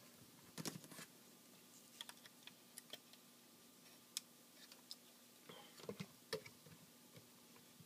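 Faint, scattered clicks and taps of hard plastic toy parts as small missiles are plugged into a TFC Toys Eagle transforming robot figure in jet mode.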